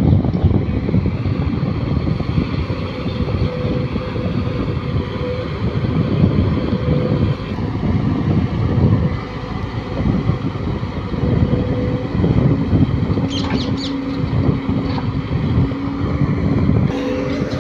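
Heavy diesel machinery running steadily: a JCB 145 tracked excavator digging and loading soil, with a farm tractor's engine idling, and a steady whine over the engine noise.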